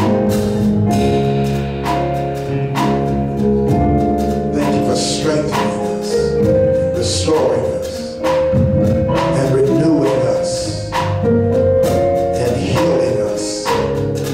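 Slow instrumental music: sustained chords over a steady beat, with a hit roughly once a second.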